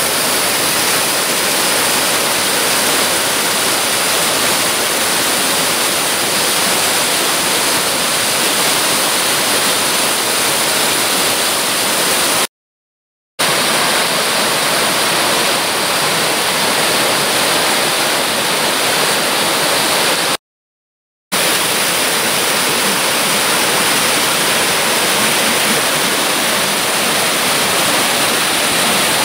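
Mountain stream rushing over rock slabs and small stepped waterfalls: a steady, loud rush of water. It cuts out suddenly twice for under a second.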